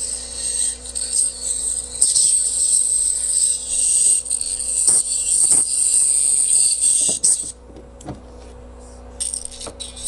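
Music played through a bullet super tweeter fed through a capacitor, heard as thin, hissy treble with no bass. About seven and a half seconds in it cuts out, with a few clicks as the leads are moved to another tweeter, and comes back just before the end.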